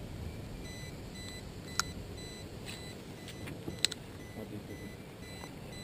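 Spinning reel being cranked on a fishing rod, giving a few short sharp clicks about two and four seconds in over faint wind and water noise. A faint high electronic beep comes and goes.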